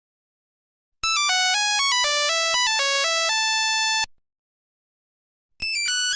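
Nokia 1100 monophonic ringtone: a quick melody of single buzzy electronic beeps stepping up and down in pitch, cut off after about three seconds, then after a short silence another ringtone melody starts near the end.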